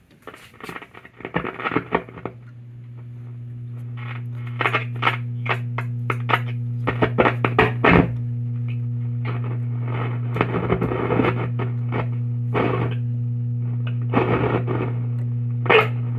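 1935 Philco 650X console tube radio warming up: a steady low hum builds over the first few seconds and holds, with static and snatches of broadcast coming through as the knob is turned. The owner hears the hum and puts it down, probably, to leaky capacitors.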